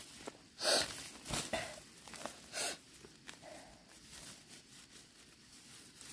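Weeds being pulled up by hand from dry soil: several short rustling pulls, the loudest about a second in.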